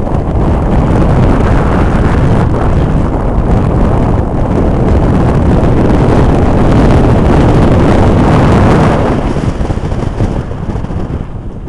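Wind buffeting the microphone from a moving vehicle, mixed with vehicle and road noise; loud through the middle and easing off near the end.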